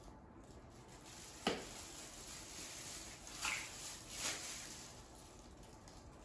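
Small kitchen handling sounds: a sharp knock about a second and a half in as a spice shaker is set down on a granite countertop, then faint rustling with two brief scuffs a couple of seconds later.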